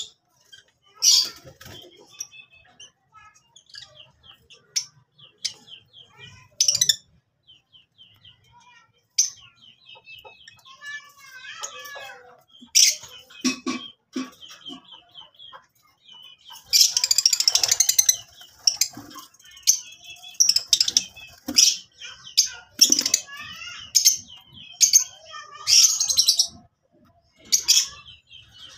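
Lutino peach-faced lovebirds chattering in short, high-pitched chirps and squeaks, sparse at first and growing busier and louder about halfway through.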